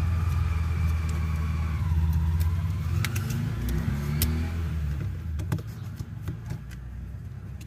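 A vehicle engine running in the background, a low steady hum that fades away after about five seconds, with a few sharp clicks of a screwdriver prying at the plastic casing of a Bluetooth speaker.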